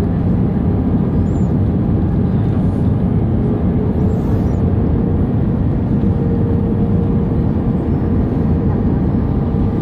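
Steady rush of airflow and jet engines inside the cabin of an Airbus A319 in flight, with a faint steady hum that comes in a few seconds in.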